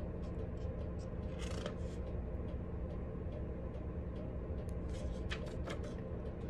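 Paper rustling as the pages of a thin instruction booklet are handled and turned: short crackles, a cluster about a second and a half in and more near the end, over a steady low hum.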